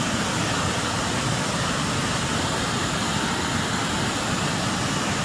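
Steady rush of a large waterfall: heavy water pouring over the Somphamit (Li Phi) falls, an even roar with no breaks.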